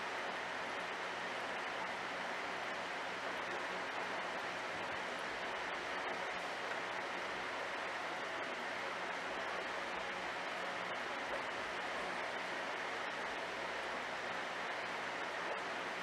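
Steady, even hiss of aquarium water and pump noise with a faint low hum beneath it, unchanging throughout.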